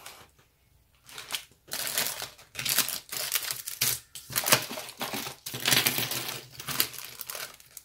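Clear plastic jewelry bags and cardboard display cards crinkling and rustling as they are handled and shuffled on a table, in irregular bursts that start about a second in.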